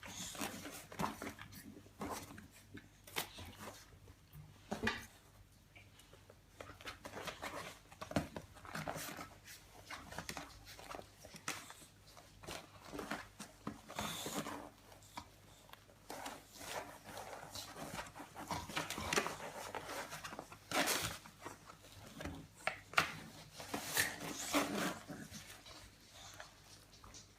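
Puppies moving about and making small sounds, with irregular short clicks and scrapes.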